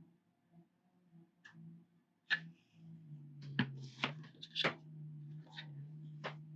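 Small sharp clicks and taps of a plastic model kit and tools being handled on a workbench, about six of them spread over the last four seconds, over a low steady hum.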